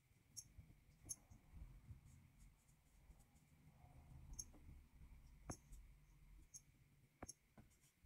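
Near silence: a thin paintbrush faintly scratching oil paint along a canvas board, with a few small clicks.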